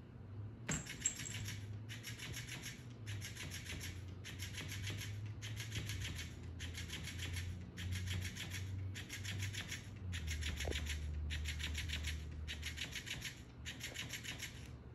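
Electric flopping-fish cat toy running: its motor buzzes in regular bursts, about one every second and a bit, each lasting most of a second, as the plush fish flaps its tail on the hardwood floor.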